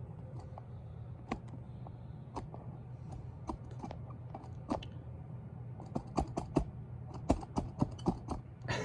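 Irregular light clicks and knocks, sparse at first and coming thicker in the last few seconds, over a steady low hum.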